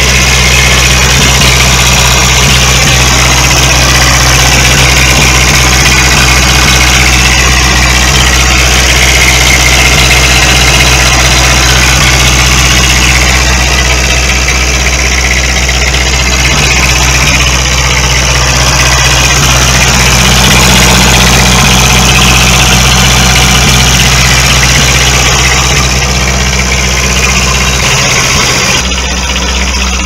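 Detroit Diesel 6V92 two-stroke V6 diesel idling steadily, warming up after a cold start.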